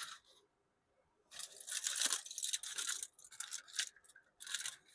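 Tinfoil packet crinkling and rustling in irregular bursts as it is opened on the barbecue grill to check the cooking fish, starting about a second in.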